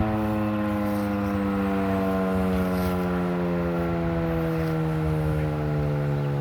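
Federal Signal 2001-130 rotating mechanical tornado siren winding down after its test, its tone falling slowly and steadily in pitch.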